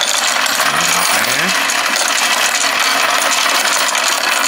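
Royal Sovereign automatic coin sorter running: a steady, dense clatter of quarters, nickels, dimes and pennies rattling through its sorting mechanism into the wrapper tubes.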